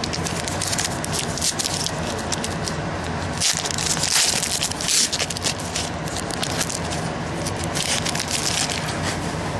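Trading cards and pack wrappers being handled: irregular crinkling and rustling with small clicks, busiest in the middle.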